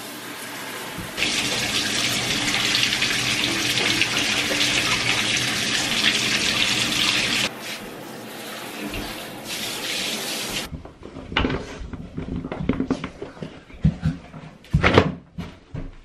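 Handheld shower head spraying water into a bathtub to rinse it: a steady hiss that gets much louder about a second in, drops back after about seven seconds, and stops about ten seconds in. After that come irregular knocks and rustles.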